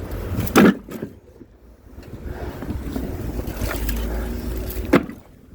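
Two heavy thuds, about four seconds apart, the first the louder, over a steady low rumble of wind on the microphone.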